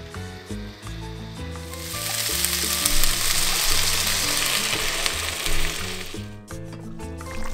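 Tomato-chipotle salsa poured into a hot pan of potatoes and onion frying in oil, sizzling for about four seconds and then cut off suddenly. Background music plays underneath.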